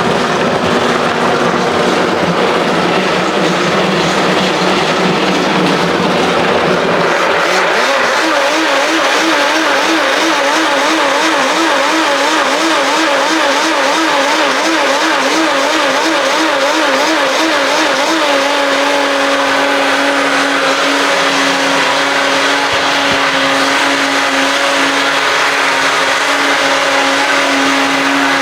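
Countertop blender motor running continuously while blending a salsa. From about eight seconds in, its pitch wobbles up and down, then it settles into a steady, higher hum for the rest of the time.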